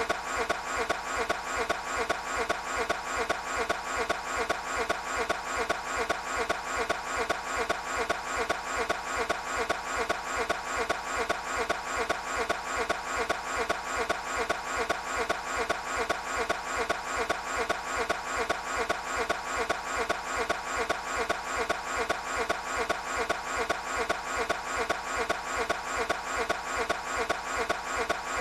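Toyota 86's starter cranking the engine over and over in a steady, even rhythm without it catching: the engine is failing to start.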